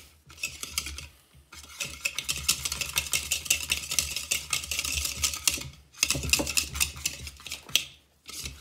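A wire whisk beating softened cream cheese in a bowl, its wires clicking and scraping against the bowl in quick strokes. The runs stop briefly three times.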